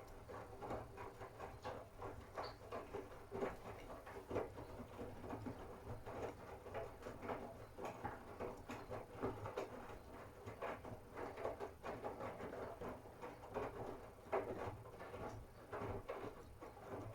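Miele W1 front-loading washing machine in a 60 °C cotton wash, its drum turning the laundry. There are irregular light clicks and knocks over a steady low motor hum.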